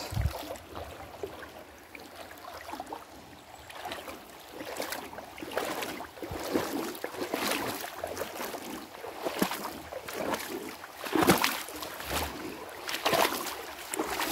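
Footsteps wading through shallow creek water: irregular sloshes and splashes, roughly one a second after the first few seconds, the loudest a little past the middle.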